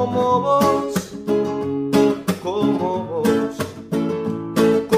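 Song with strummed acoustic guitar and a voice singing long, wavering notes between sung lines.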